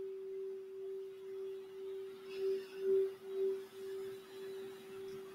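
Crystal Alchemy singing bowl tuned for the throat chakra, ringing with one steady pitched tone. The tone swells and wavers in loudness a few times in the middle.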